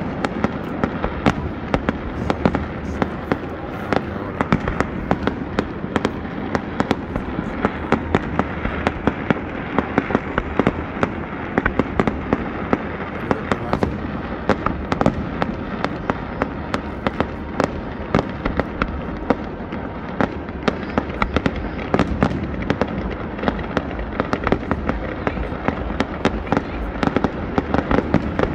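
Aerial firework shells bursting in quick succession, a dense run of sharp bangs and crackles over a continuous rumble.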